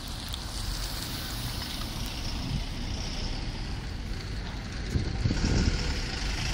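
Sinotruk HOWO sewage suction truck running, a steady low mechanical rumble with wind on the microphone, swelling louder about five seconds in.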